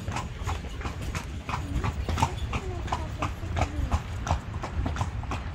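Horse's hooves clip-clopping on a paved path as it pulls a tanga (horse-drawn carriage), an even beat of about three hoof strikes a second over a steady low rumble.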